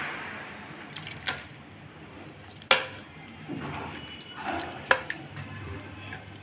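Metal hand masher squelching through soft boiled vegetables and their cooking water in an aluminium pressure cooker. It knocks sharply against the pot three times, the middle knock the loudest.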